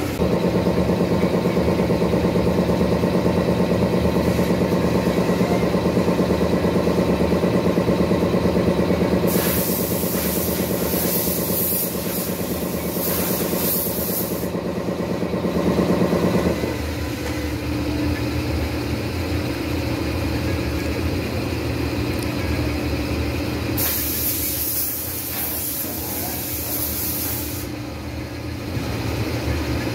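Steady factory machinery hum that changes to a lower, quieter hum about sixteen seconds in. Two stretches of loud hissing lie over it, each lasting a few seconds: one about ten seconds in and one near twenty-four seconds.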